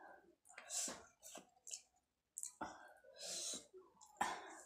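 Close-miked mouth sounds of a person eating by hand: chewing and lip smacking in several short irregular bursts with sharp wet clicks.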